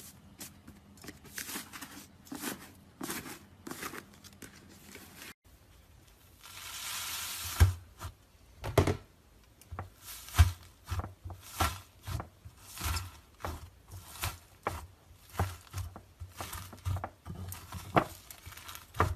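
Iceberg slime being pressed and squeezed by fingers: crisp crackling as its dried top crust breaks up, then a steady run of wet, crunchy presses, each with a soft low thud, a little under two a second.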